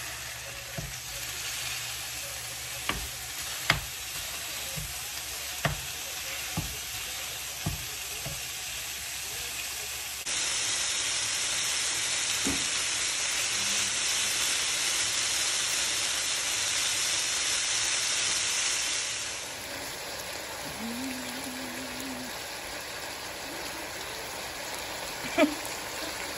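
Thin-sliced fajita steak sizzling in a hot nonstick frying pan, stirred with a wooden spoon that knocks against the pan a few times. About ten seconds in the sizzle turns louder and hissier, then eases back some nine seconds later.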